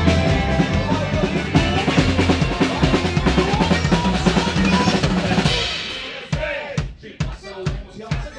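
Live band playing a rock number with a driving drum-kit beat. About five and a half seconds in, the other instruments drop out and only the drums carry on.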